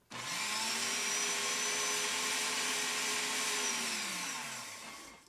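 Countertop blender switched on, blending a dressing of oil, garlic, lemon, vinegar and egg: the motor spins up quickly, runs steadily for about four seconds, then winds down with a falling pitch near the end.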